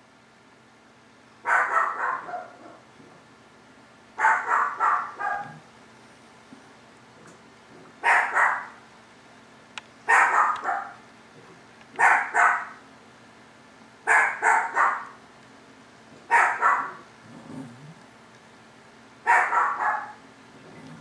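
Chihuahua barking in repeated short bursts of two to four sharp barks, about eight bursts spaced two to three seconds apart.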